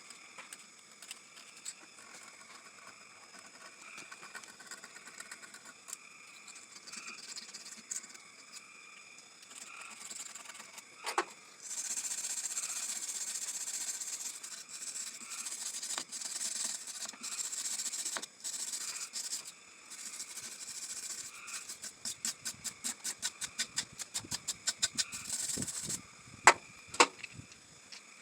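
Hand scraping and brushing of old gasket residue and rust off the thermostat housing surface of a Chevy 250 straight-six engine: long runs of hissy metal scraping, then quick back-and-forth strokes about four a second near the end, with a few sharp knocks.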